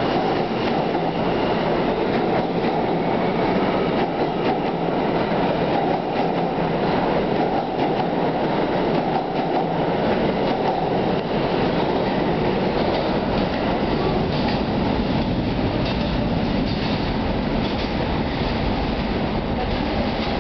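R160 subway train accelerating out of an underground station, its cars running past with a steady loud rumble. The wheels click over the rail joints, more sharply in the second half as the last cars go by.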